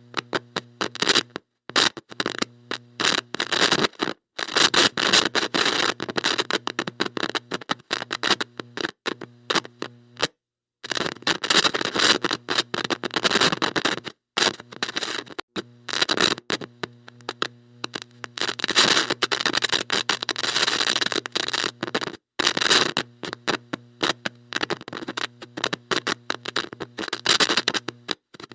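Heavy electrical static from a bad electronic connection: crackling hiss with a buzzing hum underneath, cutting out to silence and back again and again at irregular moments, as the contact breaks and makes.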